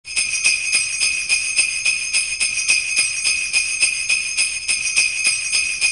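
Sleigh bells (jingle bells) shaken in a steady rhythm, about four shakes a second.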